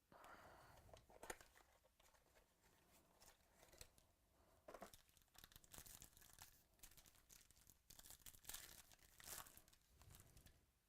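Faint tearing and crinkling of trading-card pack wrappers being torn open, with scattered short rustles and clicks as the packs and cards are handled.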